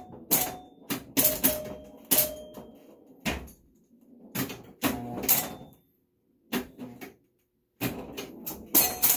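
Super Flite electromechanical pinball machine in play: a rapid, irregular run of sharp mechanical clacks and snaps from its solenoids, flippers and stepping score reels, some with a short ring after them. There are two brief lulls in the second half.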